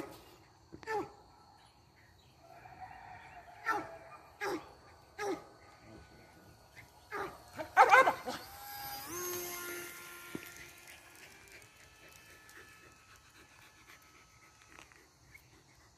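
Dog barking: several short barks, some under a second apart, with the loudest burst of barks about eight seconds in. A steady hum with a few higher tones follows for several seconds.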